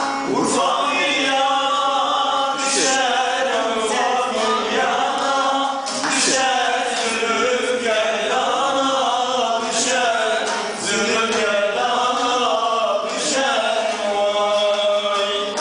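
A man singing a Urfa folk song (türkü) in long, wavering, ornamented phrases, with a few plucked strokes of a bağlama (saz) underneath.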